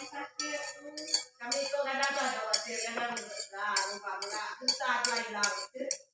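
Clinking and tapping of toy cutlery and dishes, with a voice singing over it.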